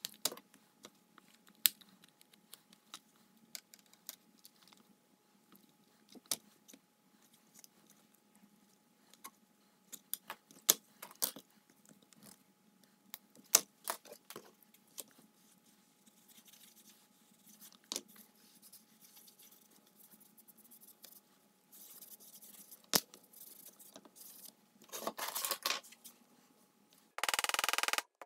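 Scattered small clicks and knocks of tools and leather on a granite slab, then a hand tool scraping and rubbing on a sewn leather holster, growing louder toward the end.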